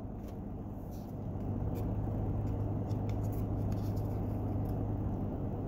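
Steady low hum of a car heard inside its cabin, growing a little louder about a second in, with a few faint ticks from baseball cards being handled.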